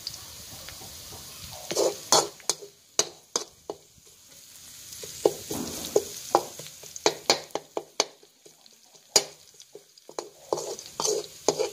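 A metal slotted spatula scraping and clacking against a steel wok in irregular strokes, stir-frying garlic and chilies in oil, with a faint sizzle underneath.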